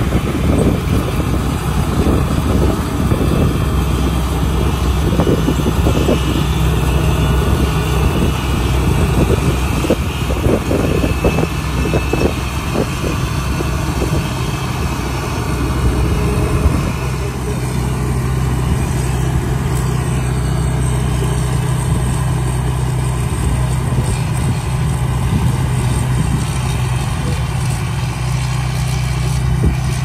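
Tracked rice combine harvester running steadily under load as it cuts and threshes rice, its engine hum mixed with rough mechanical noise. The sound drops a little about halfway through as the machine moves away.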